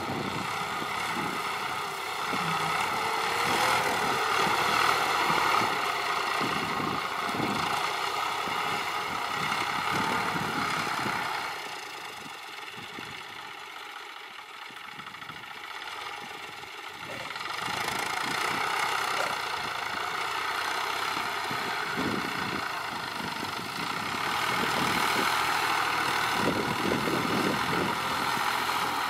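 Farm tractor engine running as the tractor drives through deep mud. The engine fades for a few seconds in the middle, then grows louder again.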